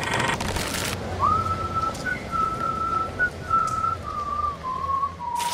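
Someone whistling a short, simple tune, a single thin line that wavers and drifts slowly lower in pitch toward the end. A brief noisy rush comes just before the whistling starts.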